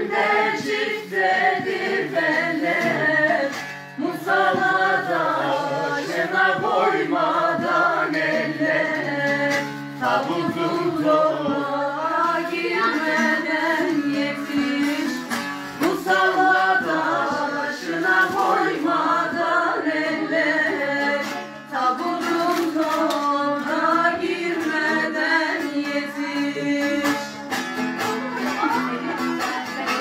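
Bağlama (Turkish long-necked saz) playing a Turkish folk-song melody with quick plucked notes.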